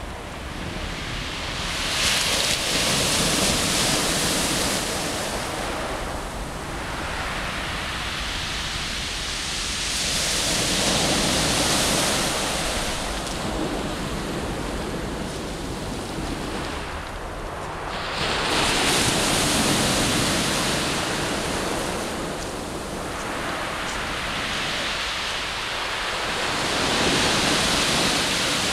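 Mediterranean surf breaking and washing up a pebble beach, four waves swelling and fading about every eight seconds.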